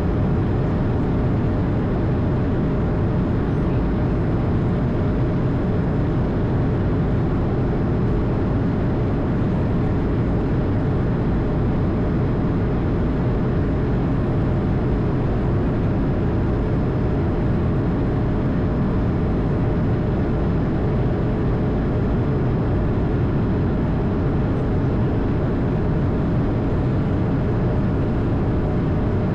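Airbus A220's Pratt & Whitney PW1500G geared turbofans and airflow heard from inside the aircraft: a steady, unchanging noise, heaviest in the low end, with a faint constant hum.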